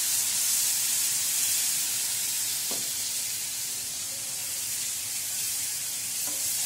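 Hot water hissing and sizzling on golden-roasted semolina in a frying pan while it is stirred with a wooden spatula. The hiss eases a little as it goes on. There is a light knock about two and a half seconds in.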